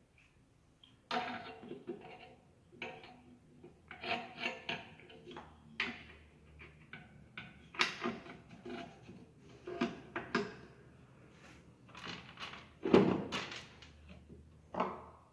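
Irregular knocks, clicks and clatter of Ford Fiesta gearbox parts being handled during reassembly, a few with a short metallic ring. The heaviest knocks come about 13 seconds in.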